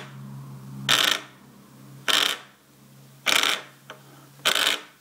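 ZBand vibrating wrist alarm going off, its vibration motor buzzing and rattling against a wooden tabletop in short pulses about a second and a bit apart, four times. The unit is out of its wristband, so it rattles on the table.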